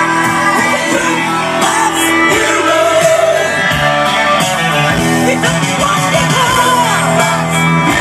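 Rock music with singing played loud on a car audio system.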